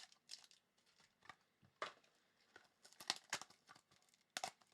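Faint, scattered crinkling and tearing of card packaging being handled and opened, in short sharp crackles, the loudest a little after three seconds in and again near the end.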